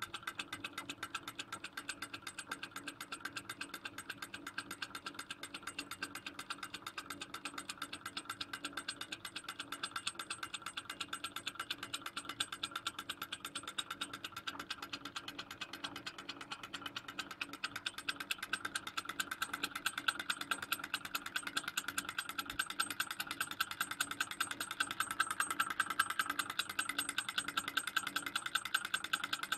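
Small model Stirling engine running, its piston and crank linkage clicking in a fast, even clatter with each turn of the flywheel. It grows a little louder in the last third.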